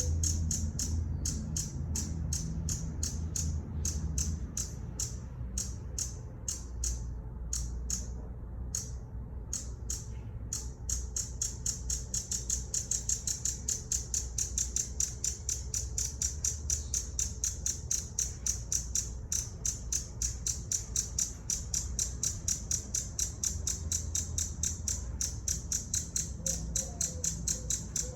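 Hummingbird calling a long series of high, sharp chips. They come unevenly with short pauses at first, then from about ten seconds in run on steadily at about three a second.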